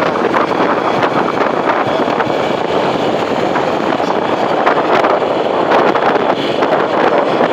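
Heavy, steady wind noise on a motorcycle rider's microphone: rushing air buffeting the mic while riding.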